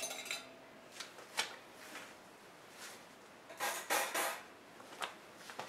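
Metal tongs clicking and scraping against the wire rack and glass bowl of a halogen convection oven: a few light, scattered clinks, with a short cluster of them about four seconds in.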